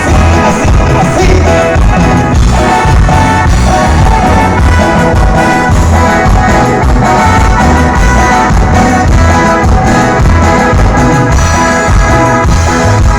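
A live band playing loud dance music with a steady, pulsing bass beat.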